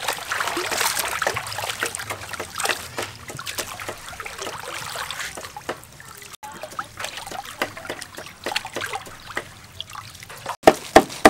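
Hands swishing bean sprouts through a basin of water, splashing and trickling, then water dripping and trickling as handfuls of sprouts are lifted into a plastic colander. Near the end, a cleaver strikes a wooden chopping board twice, sharp and loud.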